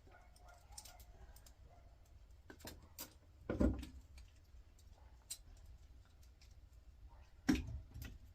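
Light clicks and taps of small metal and plastic parts being handled, with two louder knocks, about three and a half seconds in and near the end.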